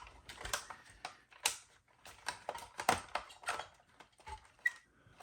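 Irregular small clicks and taps of hard plastic as the cab shell of a WPL C24 RC truck is worked into place on its chassis.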